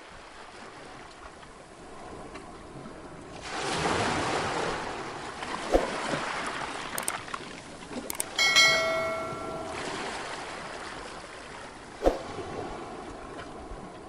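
Sea waves washing and breaking over rocks, a steady surf that swells about three and a half seconds in. Partway through come a few sharp clicks and a single bell-like notification chime that rings for about a second and a half.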